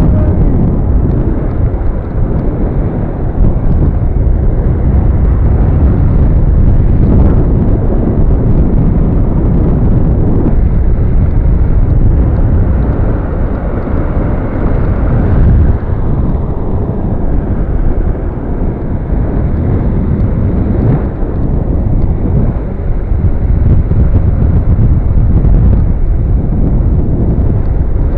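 Loud, steady rumble of wind buffeting the microphone and skateboard wheels rolling over a paved path while riding.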